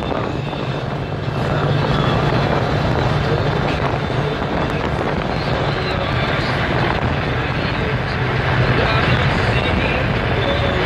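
Steady road and wind noise of a car travelling at highway speed, with wind rushing over the phone's microphone near the window and a steady low drone from the car.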